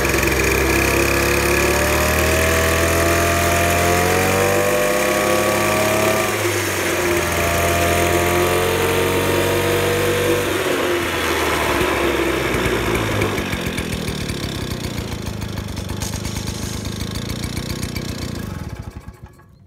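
Motobécane Mobylette AV89 moped's small two-stroke single-cylinder engine running, blipped up in pitch twice. It then falls back to a slower run of separate firing beats and stops near the end.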